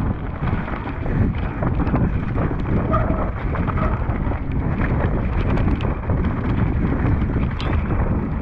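Mountain bike ridden fast down a dirt trail: wind buffeting the camera microphone over tyre roar on the dirt, with many quick, uneven knocks and rattles from the bike over bumps.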